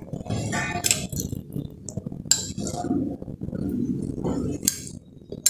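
Stainless steel spoon clinking and tapping against a glass bowl and a steel bowl as thick custard apple pulp is spooned out: a series of irregular short clinks.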